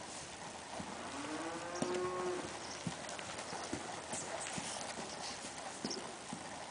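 A horse trotting on the sand of a riding arena, its hoofbeats coming as irregular knocks. About a second in, a drawn-out animal-like call rises and then holds its pitch for about a second and a half.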